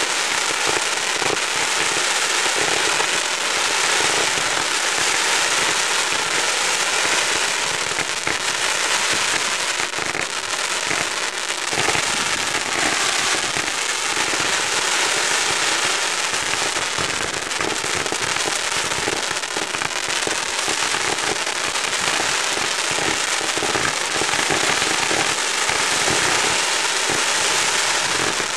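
Fireworks barrage firing without pause: rapid launches and sharp pops run together into a dense, steady crackle as many shots go up at once.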